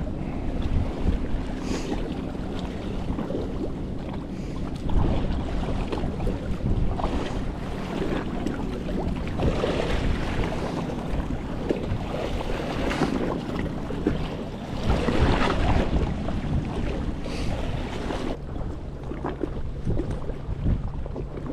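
Wind buffeting the microphone over a choppy sea, with waves splashing against the side of a small boat in irregular surges every few seconds and a steady low hum underneath.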